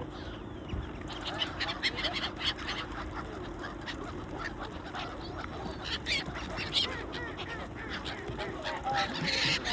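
A flock of waterfowl calling over one another, many short, overlapping calls from about a second in, with a burst of noise near the end.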